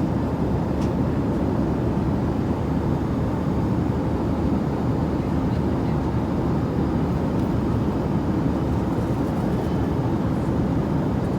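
Airliner cabin noise in flight: a steady, even low rumble with no breaks.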